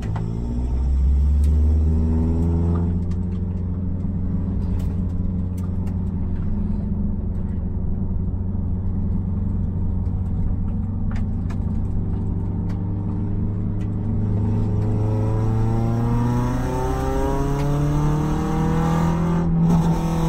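Peugeot 106 Sport's 1.4-litre eight-valve four-cylinder engine heard from inside the cabin, running under load at fairly even revs, then revving up steadily through the last third. Near the end there is a momentary break in the engine note before it picks up again.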